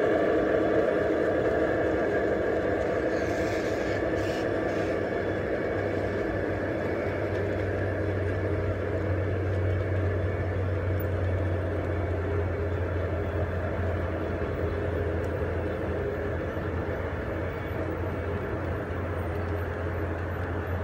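Large-scale garden railway model freight train rolling past on outdoor track, a steady running sound of wheels on rail with a low hum that strengthens about six seconds in.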